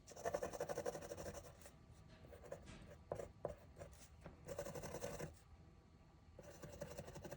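Scratchy strokes of a craft tool drawn across cardstock, as in scoring or trimming paper, with a couple of light clicks in the middle.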